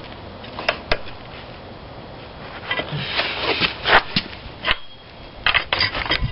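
Metal hand tools clicking and rattling in short scattered bursts, with runs of quick clicks like a ratchet wrench at work on the axle nut.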